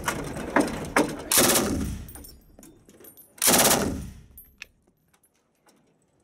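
French AA52 general-purpose machine gun firing two short bursts, about a second and a half and three and a half seconds in, each with a reverberant tail.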